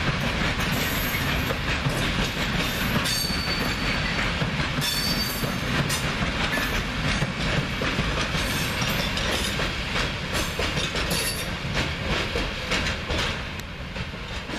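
Freight train of open-top wagons rolling past, the steel wheels clattering over the rail joints in a steady run of clicks. There are two brief high wheel squeals about three and five seconds in. The sound eases off a little near the end.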